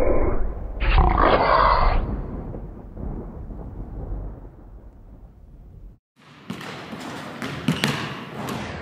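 Loud low rumbling noise that fades away, then after a short break several sharp bounces of a basketball on a hardwood gym floor, echoing in the hall.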